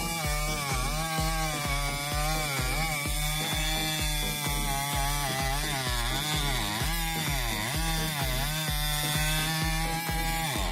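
A Husqvarna 3120 XP, a big 118cc two-stroke chainsaw, running as it cuts wood, its engine pitch dipping and recovering again and again under load. Background music with a steady beat of about two thumps a second plays underneath.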